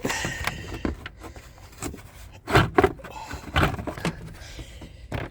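Radiator cooling fan assembly scraping and rubbing against the surrounding parts as it is worked forward out of the engine bay, with a few sharp knocks about halfway through.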